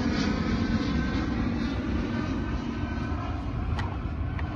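Stihl MS 180 chainsaw's two-stroke engine running steadily, slowly getting quieter.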